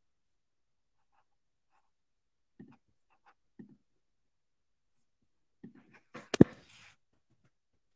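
Handling noise in a quiet room: a few faint knocks and rustles, then a loud sharp click about six seconds in.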